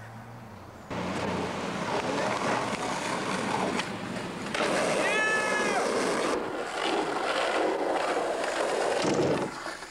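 Skateboard wheels rolling over rough pavement. About five seconds in comes a short, high squeal that rises and falls.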